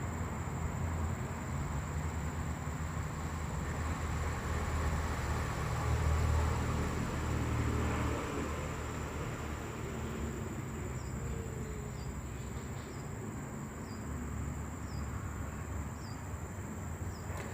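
Outdoor ambience: a steady low rumble with a thin, constant high insect whine. From about two-thirds of the way in, short high chirps repeat about once a second.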